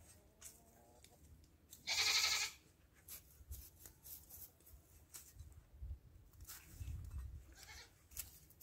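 A goat bleats once, short and loud, about two seconds in, after a fainter call just before it. Around it, soft scratching and rustling of gloved hands working in mulch and soil.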